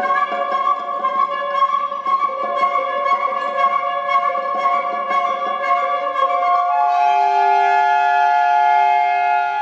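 Contemporary chamber music led by a flute: sustained flute tones over a rapid run of short, repeated attacks, then about seven seconds in the ensemble settles into a held chord of several long steady notes.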